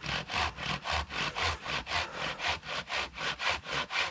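Hand saw cutting through a log for firewood in fast, even back-and-forth strokes, about four a second.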